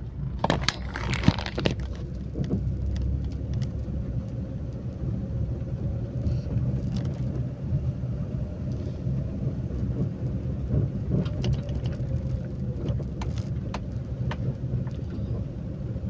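Car cabin interior while driving: a steady low rumble of engine and road noise with a faint hum above it. A few sharp clicks come about a second in.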